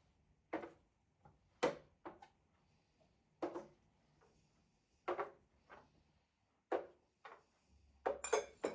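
Dishes and cutlery being handled: irregular short clinks and knocks, with a quick cluster of them near the end.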